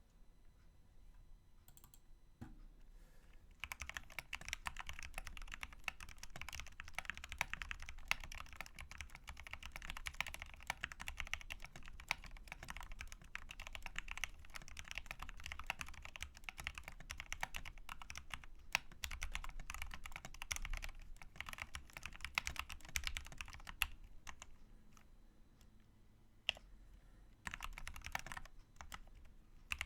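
Typing on a Redragon Deimos (K599) mechanical keyboard with lubed Outemu Red linear switches, stock stabilisers with the bandaid mod, and XDA-profile keycaps: a quick, steady stream of key clacks. It starts about three and a half seconds in, thins out for a few seconds near the end, and then picks up again.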